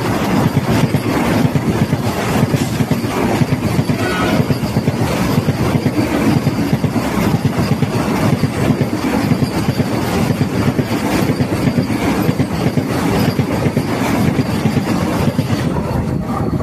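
Indian Railways passenger train passing at speed close by: a loud, continuous rush with dense clattering of the coach wheels over the rails.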